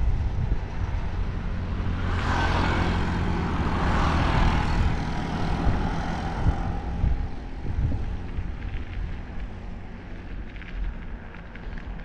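Wind rumble and road noise on a bicycle-mounted camera riding along an asphalt road. The noise swells into a louder rush from about two to seven seconds in, then eases.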